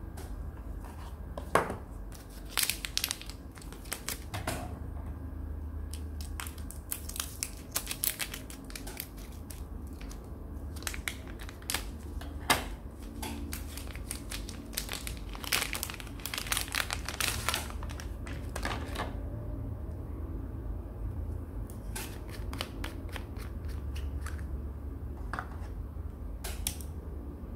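Clear plastic wrapping being torn and crumpled off an ink refill bottle, in runs of crinkling separated by short pauses.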